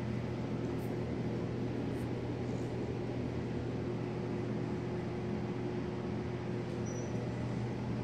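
Pet drying box running with a steady fan hum, with a few faint, short, high clicks over it.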